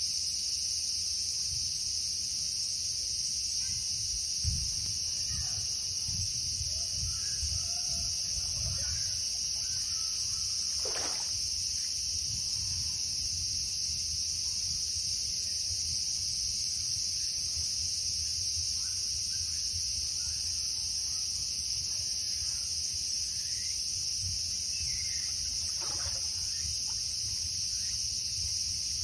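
A steady, high-pitched insect chorus that does not change, with low rumbling on the microphone mostly in the first third.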